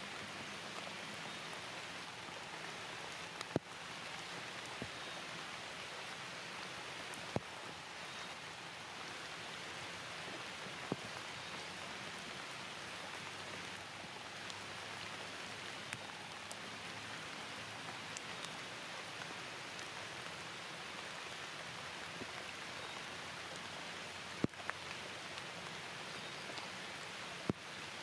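Steady rain falling, an even hiss with no break, with a handful of sharp clicks scattered through it.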